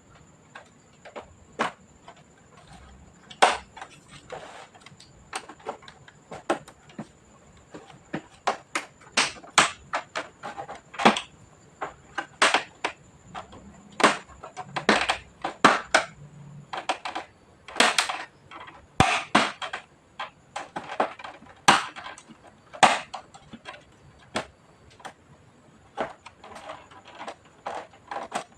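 Irregular clicks, taps and knocks of hard plastic and small tools being handled, often several a second and some sharper than others, as an all-in-one PC's case is worked on.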